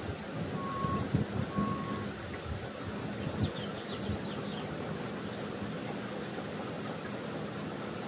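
Bee swarm buzzing overhead: a steady, even hum of many wings. Two short beeps sound about a second in, and a few low thumps come in the first two seconds.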